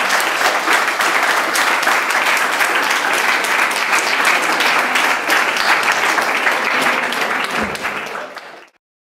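A small group of people clapping and applauding, fading out near the end.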